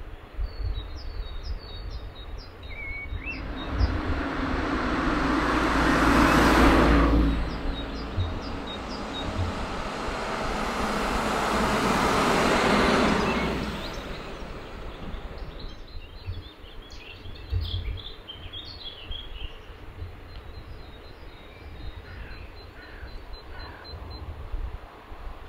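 Two road vehicles drive past one after the other, each swelling up and then fading, the first about six seconds in and the second, a van, about twelve seconds in. Small birds chirp throughout.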